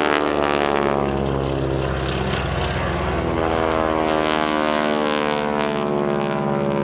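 Boeing Stearman biplane's radial engine and propeller running at power overhead, a steady drone whose pitch shifts slowly as the aircraft climbs and turns.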